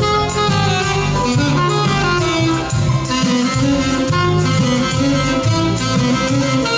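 Alto saxophone playing a fast Latin-American melody over a backing track of bass and steady percussion.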